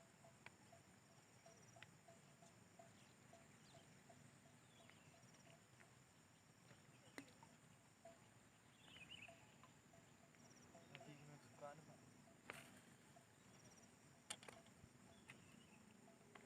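Near silence with a faint insect chorus outdoors: a steady high buzz and regular chirping, with a few sharp clicks.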